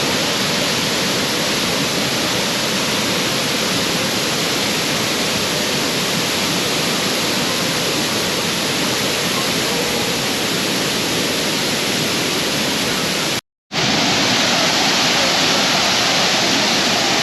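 Waterfall pouring into its pool: a loud, steady rush of falling water, broken once by a split-second gap about thirteen seconds in.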